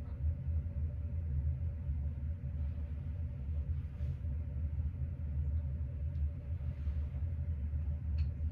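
Room ventilation running: a steady low rumble with a faint, even hum above it.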